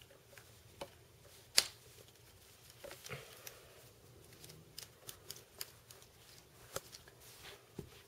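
Scattered small clicks and taps of Allen keys and metal parts being handled while a screw is undone on an airsoft M4 rifle, with one sharper click about a second and a half in.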